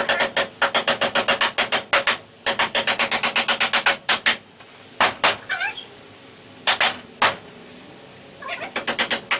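Hammer driving nails into a wooden roof stringer overhead: quick runs of sharp blows, about six a second, broken by short pauses, with a few single strikes in the middle.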